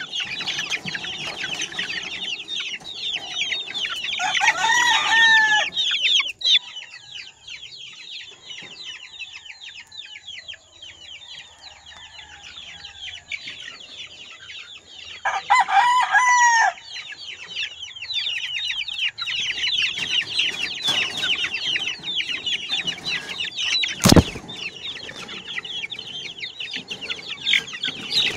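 A flock of month-old chicks peeping continuously, with a rooster crowing twice, about four seconds in and again about fifteen seconds in. There is a single sharp click later on.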